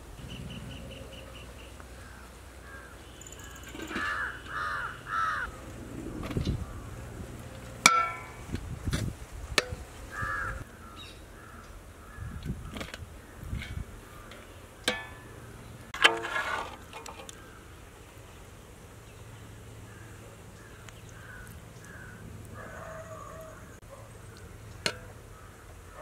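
Crows cawing repeatedly, several calls in quick runs, with sharp clanks and scrapes of a metal spatula against an aluminium pot of cooked rice.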